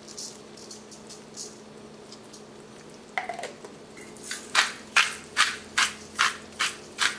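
Sesame seeds sprinkled over a vegetable stir-fry in a wok, with faint light patters, then from about four seconds in a quick even run of about eight crisp strokes as more seasoning is added by hand.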